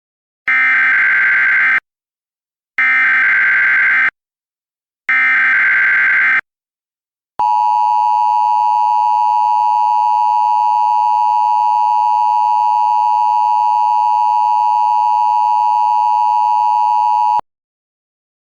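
Emergency Alert System header: three short, harsh digital data bursts, each about a second long, followed by a long steady alert tone of about ten seconds that cuts off sharply. This sequence signals the start of a new emergency alert.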